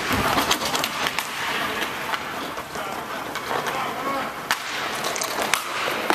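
Roller hockey play: a steady rolling noise of skate wheels on the rink floor with frequent sharp clacks of sticks striking the puck and the floor, and a few players' voices.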